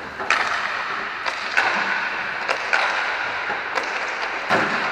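Inline hockey skate wheels rolling on a plastic rink floor, with about seven irregular sharp clacks of sticks and pucks striking.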